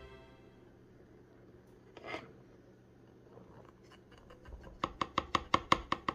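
Flour sliding from a bowl into a bread machine pan with a brief soft rustle, then a quick run of about nine light taps on the upturned bowl, about six a second, knocking the last flour out.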